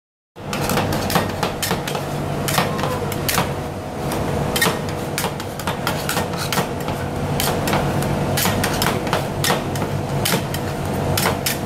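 Two metal spatulas chopping and scraping chocolate ice cream base on the stainless-steel cold plate of a rolled-ice-cream machine: repeated sharp clacks and taps at an uneven pace, over a steady low hum.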